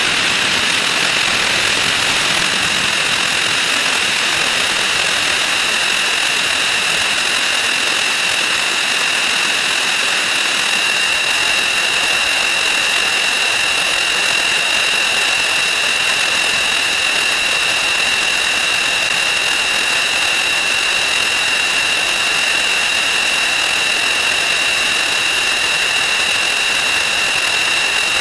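A steady, loud hiss with a high steady whine, made by a string of counting sound effects sped up 2,048 times until they merge into one continuous drone.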